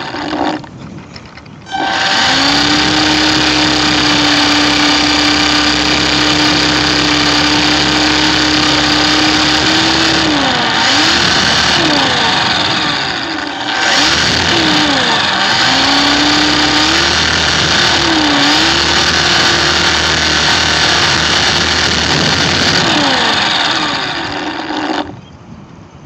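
Electric motor and propeller of a HobbyZone Super Cub RC plane running at a steady whine, starting about two seconds in. Its pitch dips and comes back several times as the throttle is eased off and opened again, and it cuts off about a second before the end.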